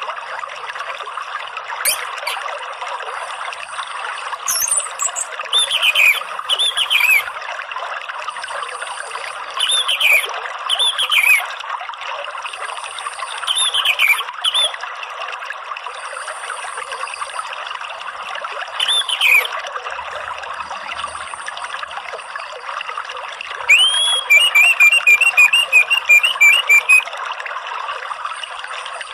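Steady trickling of running water, with a songbird's short whistled calls every few seconds, often in pairs. Near the end comes a rising note followed by a quick run of about eight short notes.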